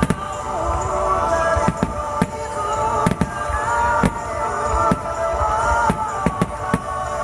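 Fireworks bursting in an irregular series of sharp bangs over music with long, sustained melodic tones.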